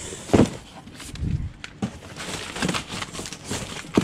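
Irregular knocks and rattles of delivery boxes and a hand trolley being handled: a sharp knock about half a second in, then several smaller bumps and clatters.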